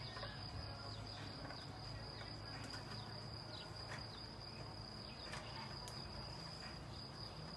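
Swarm of honeybees humming steadily, with a thin steady high tone above the hum and a few faint ticks.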